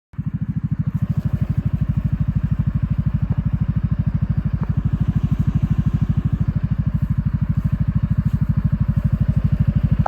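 Farm vehicle engine running steadily, its exhaust giving a rapid, even pulsing beat.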